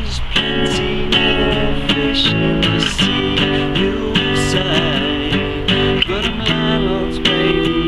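Acoustic guitar strummed in a steady rhythm in an instrumental passage of the song.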